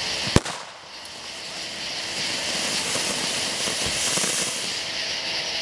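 Ground fountain firework spraying sparks with a steady hiss. A single sharp bang comes about half a second in.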